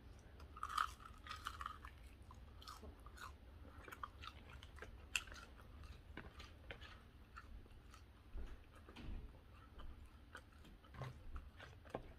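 Close-miked chewing of crispy fried chicken wings: faint, irregular crunches and wet mouth clicks, with a few slightly louder crunches.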